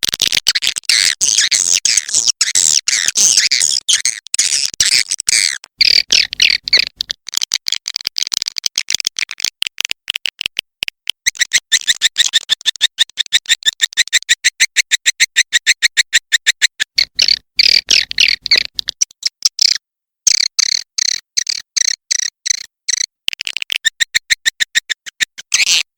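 Swiftlet calls played as a lure sound: a fast, unbroken run of high twittering chirps, many to the second, with a short break about twenty seconds in.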